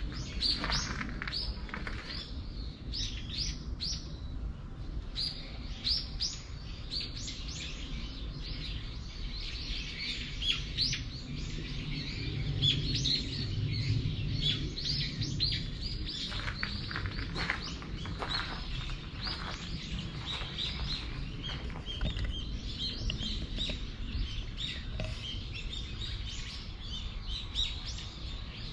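Small birds chirping busily: a dense stream of short, high, quick falling chirps, several birds calling over one another, with a low steady rumble underneath.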